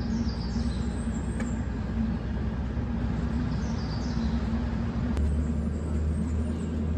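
A motor vehicle engine running steadily at idle, with a deeper hum joining about five seconds in. A bird chirps twice.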